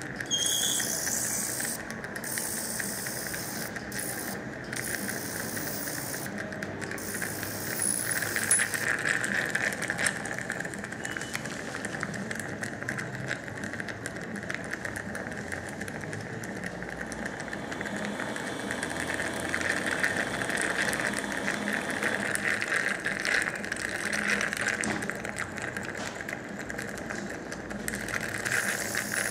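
Piezotome ultrasonic surgical tip working the alveolar bone during a crest split: a continuous hissing buzz that swells and fades, with a scatter of fine rattling clicks.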